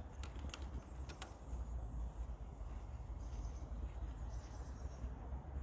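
Quiet outdoor ambience: a steady low wind rumble on the microphone, a few faint clicks in the first second, and faint high bird chirps from about three seconds in.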